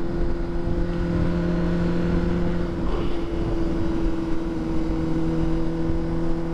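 2009 Honda CBR600RR inline-four engine running at a steady cruise, with wind rushing past a helmet-mounted microphone. The engine note wavers about three seconds in and settles a little lower.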